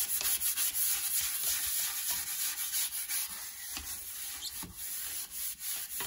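Toilet brush scrubbing a ceramic toilet bowl coated with scouring powder and cleaner: quick repeated strokes of bristles rubbing against the porcelain, a gritty scratching hiss.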